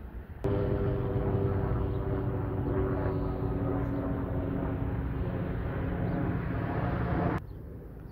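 Engine running steadily with a low rumble and several held tones; it starts abruptly about half a second in and cuts off abruptly near the end.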